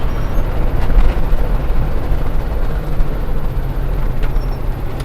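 A vehicle driving, heard from inside the cab: a steady low engine and road rumble with no distinct events.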